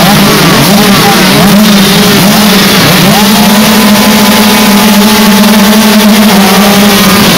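A pack of 65cc two-stroke motocross bikes revving at the start gate, throttles blipping and pitches sliding up and down against each other. From about three seconds in the engines are held at steady high revs together, ready for the gate to drop.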